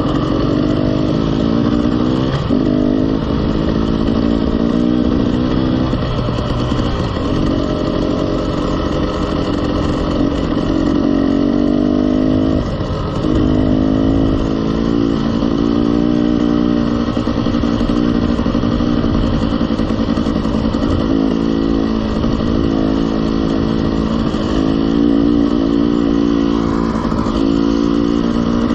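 KTM 300 two-stroke enduro dirt bike engine under way on a dirt road, its note climbing in pitch and breaking off sharply a few times as the rider shifts up through the gears and gathers speed.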